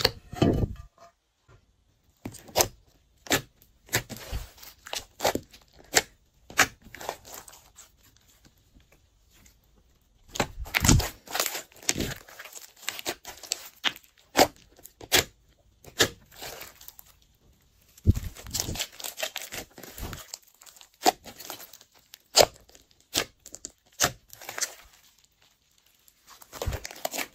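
Hands squishing, stretching and pressing slime, making irregular sticky clicks and pops from trapped air. The sounds come in clusters, with a couple of brief pauses.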